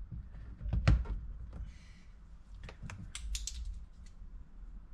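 Plastic interior trim of a Honda S2000 door panel being handled and pressed into place: a series of sharp plastic clicks and knocks, the loudest about a second in, a short scratchy rustle near two seconds, and a quick run of clicks a little after three seconds.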